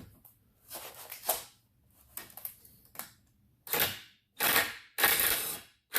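Power drill run in short bursts in reverse, driving a Speed Out extractor bit into a stripped screw head to back the screw out; the screw starts to turn and then stops. The fainter bursts in the first half give way to four loud, short bursts in the second half.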